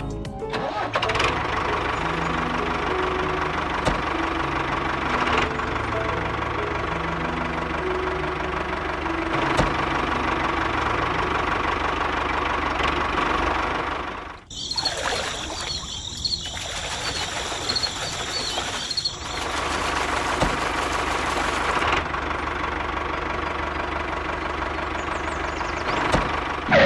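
Small electric motor of a toy mini tractor running steadily, with a rattle from its gears and drive. For a few seconds in the middle it drops away and high-pitched bird chirping is heard instead.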